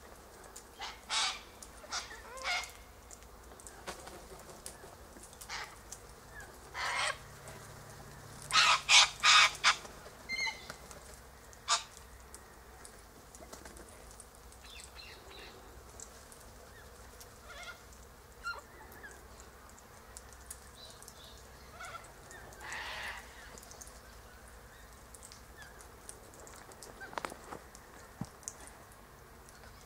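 A flock of white cockatoos calling from a tree: scattered harsh screeches, the loudest a run of three about nine seconds in, with fainter chatter between.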